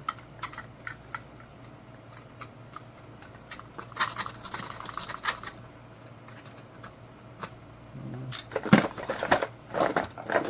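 Small sharp clicks, taps and scraping of a hand tool picking hardened glue off a circuit board around its components. There is a dense run of scraping about four seconds in and louder scratching near the end, over a faint steady low hum.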